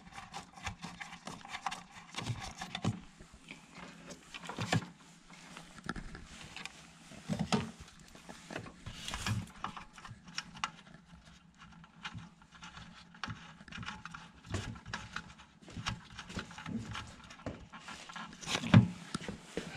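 Scattered irregular clicks, taps and rustles of small objects being handled, such as set-top boxes, cards and remote controls being moved about.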